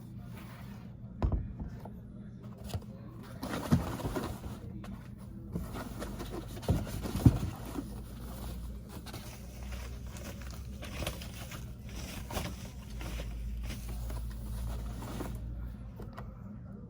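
Packaging being handled during an unboxing: scattered knocks and thumps with rustling, over a steady low hum.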